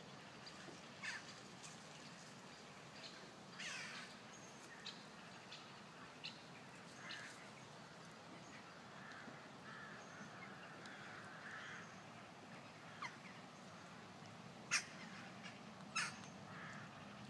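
Faint, harsh bird calls now and then, with a few sharp clicks; the two loudest clicks come near the end.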